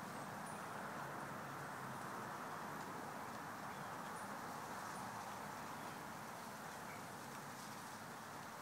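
Faint, steady outdoor background noise, with brief high chirps now and then.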